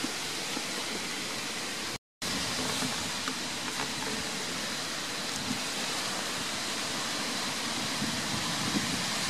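Steady rushing noise of wind on the microphone, with some low buffeting; it cuts out for a moment about two seconds in.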